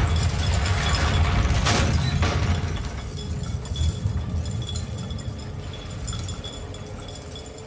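Dramatic TV sound design: a deep rumbling boom with a sharp crash about two seconds in, then fading away under a faint sustained music drone.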